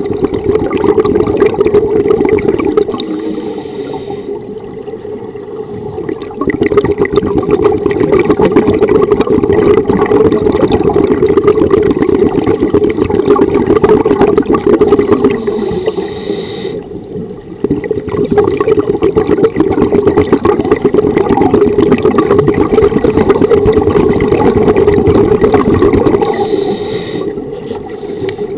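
Scuba regulator exhaust bubbles from divers breathing, heard underwater as a loud, steady bubbling rumble. It is broken by a few short, quieter lulls.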